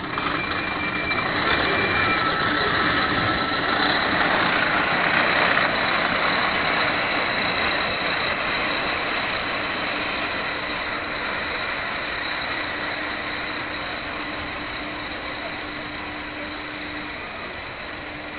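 Roller coaster train running along its track, loudest a few seconds in, then fading steadily as it moves away.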